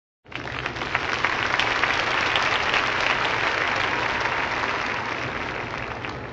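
Crowd applauding, a dense patter of clapping that starts suddenly and fades out near the end.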